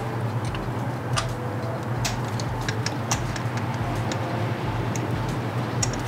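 Scattered small clicks and ticks as a spark plug is threaded into the engine's plug hole by hand with a spark plug socket and extension, over a steady low hum.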